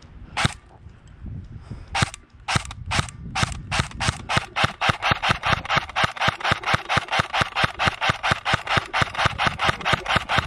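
Airsoft gun firing: a single shot, then a few spaced shots, then a steady run of about four to five shots a second that stops near the end.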